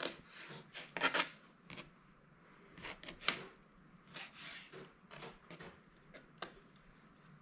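A knife trimming fat off a raw chicken leg quarter: a series of short, faint, irregular slicing strokes.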